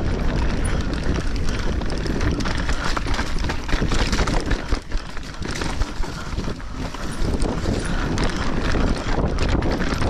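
Mountain bike riding down a rocky dirt trail: tyres crunching over dirt and rock and the bike clattering over bumps, under a steady rumble of wind on the microphone. It eases off briefly about halfway through.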